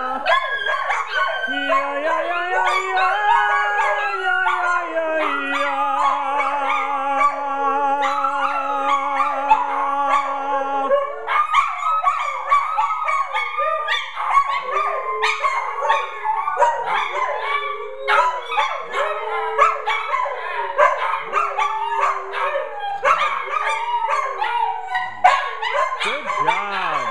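Several small dogs howling together in overlapping, wavering pitches. For about the first eleven seconds the howls are long and held over a lower steady wavering note. After that they break into shorter, choppier howls and yips.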